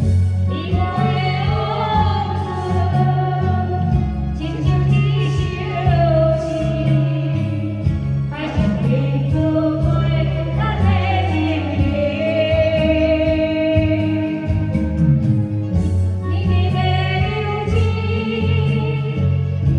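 A song: a singing voice holds long notes with vibrato in phrases a few seconds long, over a band accompaniment with a steady bass line.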